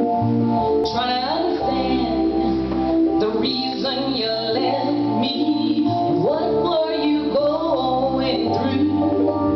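A woman singing lead into a microphone over a live band, with guitar in the backing.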